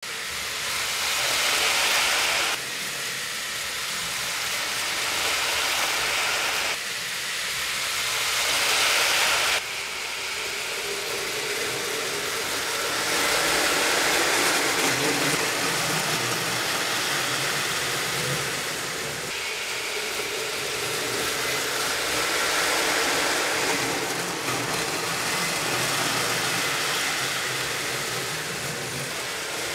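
HO-scale slot car trucks whirring along plastic slot track: small electric motors and gears running, the sound swelling and easing as the trucks pass, with a few sudden changes in level.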